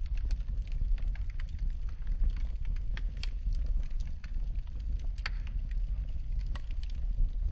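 Wood fire crackling in a fireplace: a steady low rumble of flame with irregular sharp pops and snaps, two louder pops about three and five seconds in.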